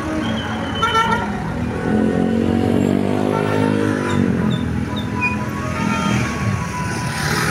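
A bus engine revs up and falls back over about two and a half seconds, with short notes of a multi-tone telolet bus horn sounding over steady traffic noise.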